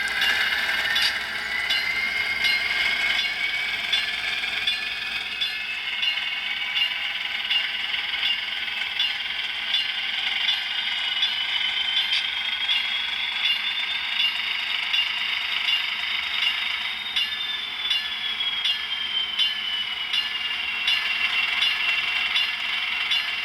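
HO scale model locomotive running along the track. Its small electric motor and gears whine, rising in pitch as it speeds up through the first half and falling again as it slows near the end, with a rattle of wheels and faint regular clicks.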